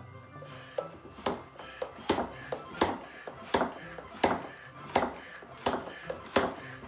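Plastic hand pump of a Stuffaloons balloon-stuffing toy worked up and down: about eight short, sharp strokes, evenly spaced about one every 0.7 seconds, starting about a second in.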